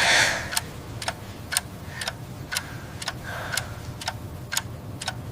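Clock-like ticking sound effect, an even tick about twice a second, over a faint low hum.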